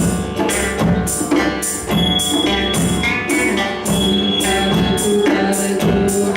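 Hand-drum music: djembe and wavedrum beat a steady rhythm of about two strokes a second over sustained pitched tones.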